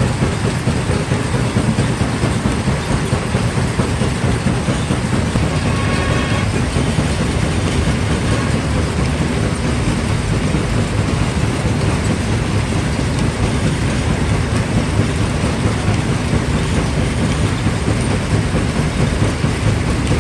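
Primary jaw crusher at a quarry running under load: a loud, steady, dense rumble and clatter of rock being broken.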